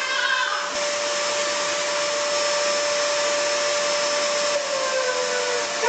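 Upright vacuum cleaner running with a steady whine and hiss; near the end the whine slides down in pitch.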